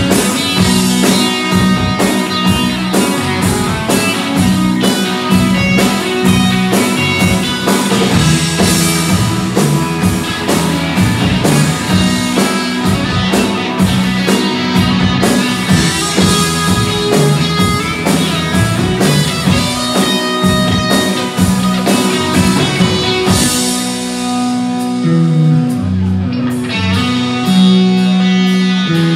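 Rock band playing live: electric guitars, bass guitar and drum kit driving along together in a steady beat. In the last few seconds the drums and cymbals thin out, leaving guitars and moving bass notes.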